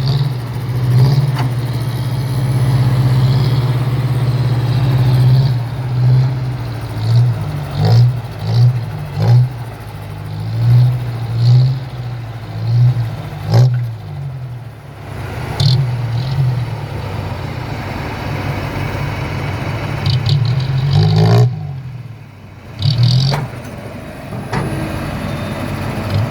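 Heavy diesel engine of earth-moving machinery running under changing load, swelling and easing many times in quick succession, with a few sharp metallic clanks.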